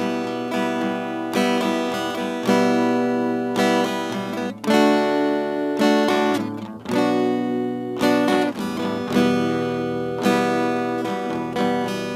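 Background music: strummed acoustic guitar chords, a new chord struck about once a second, in an instrumental break between the sung lines of an Arabic devotional song.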